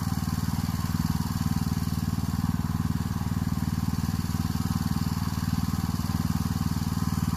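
Engine of the shed-delivery vehicle running steadily at a constant speed, with no revving.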